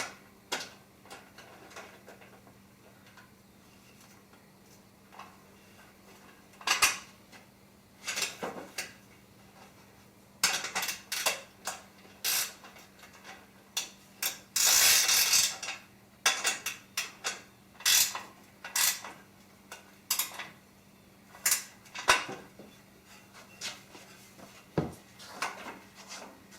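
A metal wrench clinking and scraping as nuts are tightened onto bolts in the aluminium extrusion's slots, in scattered sharp clicks. The clicks come thicker about ten seconds in, with a longer continuous noise of about a second and a half around the middle.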